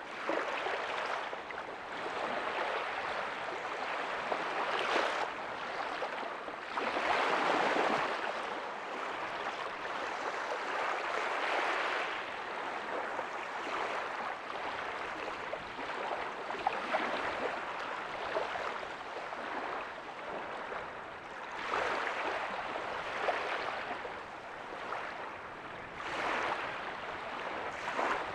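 Ocean waves breaking softly on a beach: a steady rush of surf that swells every few seconds as each wave comes in, loudest about seven seconds in.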